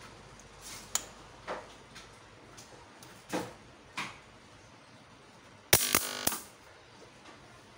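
Pliers shorting the output of an EGS002 8-MOSFET pure sine wave inverter. Faint clicks come first, then a sharp snap nearly six seconds in and a loud buzz lasting about half a second. The buzz stops abruptly as the inverter's short-circuit protection shuts it off.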